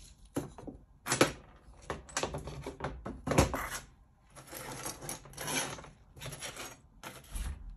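Small steel caliper parts clinking and scraping on a metal workbench as they are picked up and handled. There are a few sharp clinks in the first few seconds, then a longer rustling scrape around the middle.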